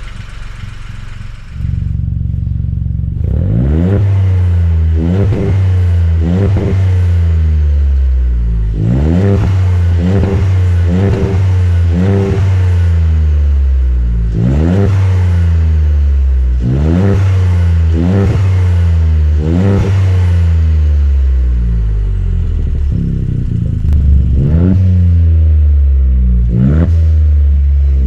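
VW Up GTI's 1.0 TSI three-cylinder turbo engine through a non-resonated Scorpion cat-back exhaust, revved over and over in quick blips, each rise in pitch falling straight back to idle. It gets much louder about two seconds in.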